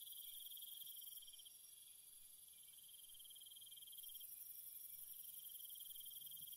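Faint, steady chirring of crickets, a fine rapid pulsing at one high pitch that dips a little between about one and three seconds in.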